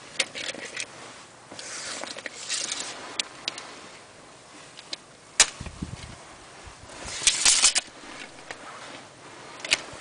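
Rustling and scraping noises with scattered sharp clicks: one strong click a little past five seconds in, and a dense bunch of them about seven and a half seconds in.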